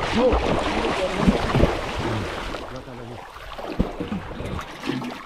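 Water splashing and churning heavily as a man moves and thrashes chest-deep through it. About two and a half seconds in it eases to lighter sloshing with a few low knocks.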